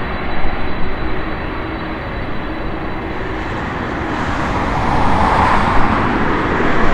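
Boeing 747-400's four jet engines at takeoff power during the takeoff roll: a steady roar that grows louder about four seconds in.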